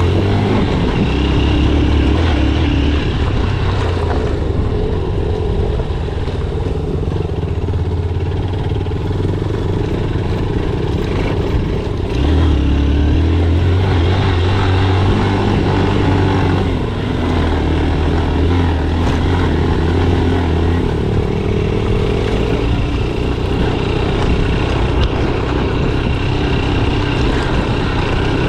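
Single-cylinder motorcycle engine running under way, its low drone strengthening and easing a couple of times with the throttle, over a steady hiss.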